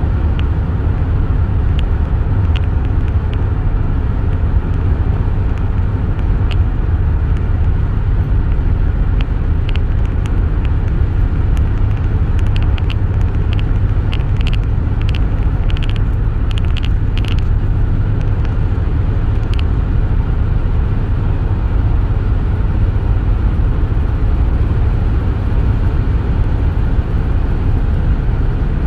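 Road noise inside a moving car's cabin: a steady low rumble of tyres and engine at highway speed. Scattered light ticks come and go, thickest about halfway through.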